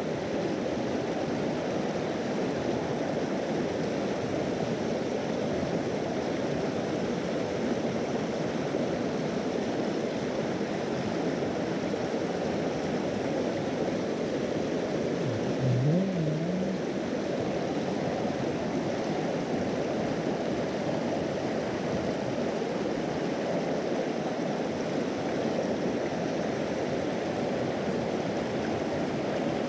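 Mountain stream rushing steadily over rocks and small cascades close by. A short low voice murmurs briefly about halfway through.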